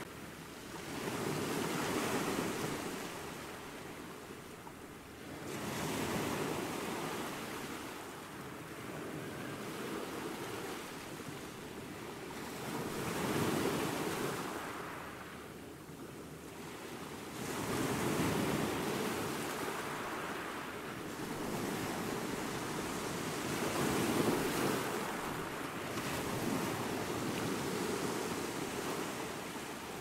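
Small waves breaking and washing up on a sandy beach, the surf swelling and fading in slow, uneven surges every four to six seconds.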